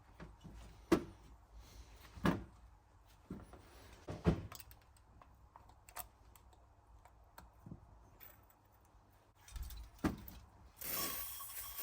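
Scattered sharp knocks and clicks of hand tools and small parts being handled during work on a motorcycle's rear brake reservoir. Near the end, a steady hiss begins.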